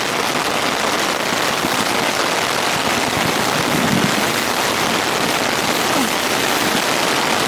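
Heavy rain falling steadily on a Big Agnes tent's rain fly: a dense, even patter of drops without a break.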